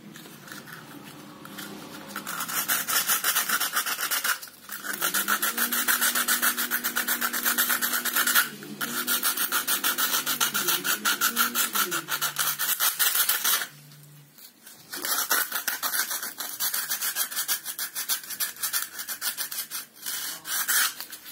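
Sandpaper scrubbed rapidly back and forth over a painted cement wall, rasping as it wears the paint off. It goes in spells broken by three short pauses.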